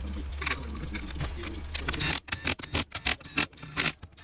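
A quick, irregular series of sharp clicks and knocks from parts and tools being handled during reassembly of a CVT transmission, starting about two seconds in. Before that there is only a low steady hum.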